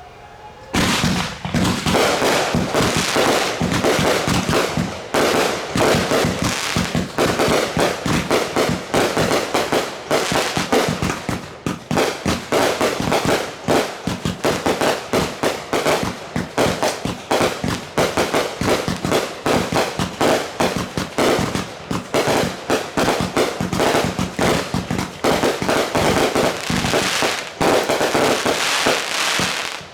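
Fireworks going off in a rapid, unbroken barrage of bangs, starting suddenly about a second in and stopping abruptly just before the end.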